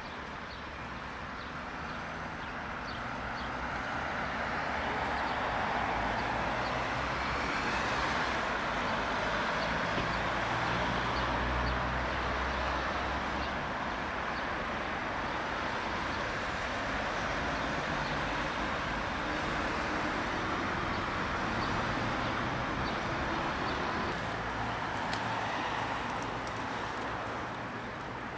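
Road traffic on a city street: vehicles passing with engines running, a steady wash of tyre and engine noise that swells a few seconds in and eases off near the end.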